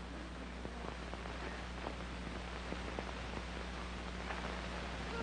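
Worn old film soundtrack between lines: a steady hiss and a low mains-type hum, with scattered faint clicks and crackles.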